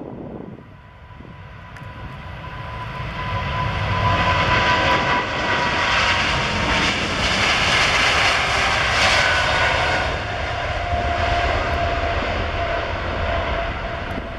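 Boeing 777's two turbofan engines at takeoff power during the takeoff roll. The jet noise grows louder as the airliner rolls past. A whine near the top drops in pitch as it goes by.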